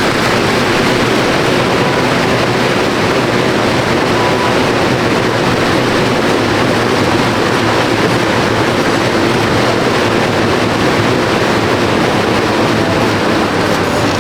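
Air-resistance fan flywheel of a gym cardio machine, whirring loudly and steadily as it is pushed hard.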